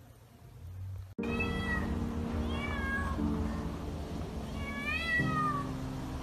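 A kitten meowing several times, each call rising and then falling in pitch, starting about a second in. Background music with slow held chords plays underneath.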